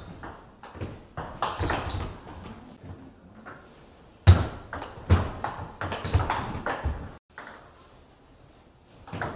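Table tennis rally: the sharp clicks of the ball striking paddles and the table, in two quick exchanges, one in the first two seconds and another from about four to seven seconds in.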